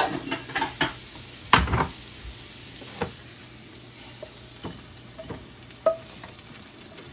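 A utensil scraping and knocking against a nonstick frying pan as fried potatoes are tipped out into a bowl. A quick run of clicks comes first, then the loudest knock about a second and a half in, then scattered single knocks.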